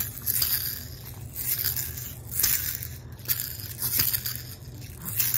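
Baby shaking a handheld plastic toy, giving about five short bursts of shaking and rattling noise roughly a second apart.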